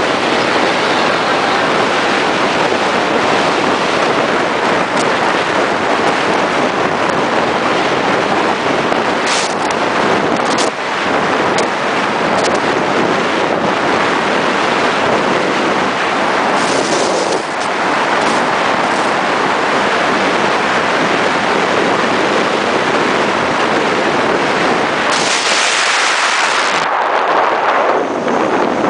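Steady rushing wind and road noise from a moving Scania G420 truck, with a few faint clicks around the middle and a louder rush near the end.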